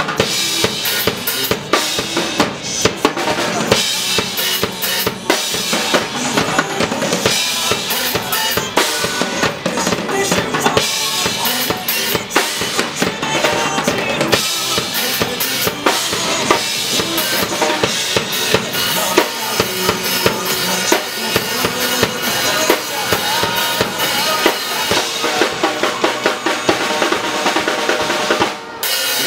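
Clear acrylic drum kit played hard in a fast pop-rock beat, with bass drum, snare and cymbals, along with a recorded backing track. There is a brief break near the end.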